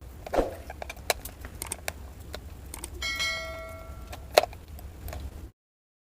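Small clicks and scrapes of a screwdriver working the case screw out of a plastic optical mouse, with a short metallic ring about three seconds in and a sharp knock soon after. The sound cuts off abruptly near the end.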